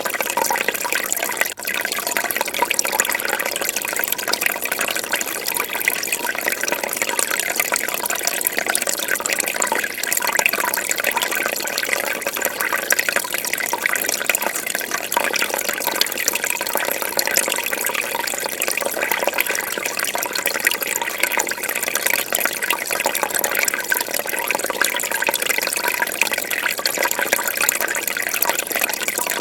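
Fish-tank water bubbling and splashing steadily, a dense continuous trickle with a brief dropout about a second and a half in.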